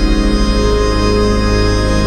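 Organ playing a loud, sustained full chord over a deep pedal bass. The chord and bass change right at the start.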